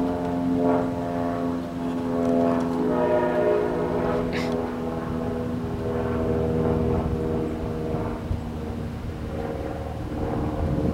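Amtrak train's diesel locomotive running with a steady hum, its tones fading over the last few seconds.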